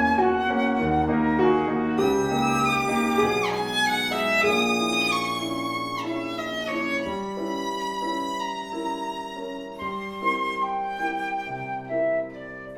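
Instrumental music from a trio, a melody moving in held and changing notes over a low accompaniment, with two falling slides between notes about a third of the way through and again near the middle.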